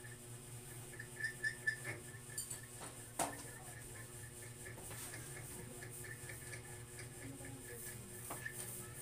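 Quiet room with a low steady hum and faint taps and clinks of crayons and pencils on a table, one sharper knock about three seconds in. A few short high peeps come a little after the first second.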